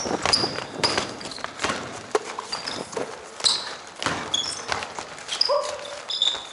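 Basketball game play on a hardwood gym floor: sneakers squeaking in short, high chirps amid the knocks of a ball being dribbled and running footsteps.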